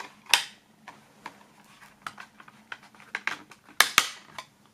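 Plastic clicks and taps of a CD being handled and pried off the hub of a clear plastic tray in a digipak case. The loudest are two sharp clicks near the end.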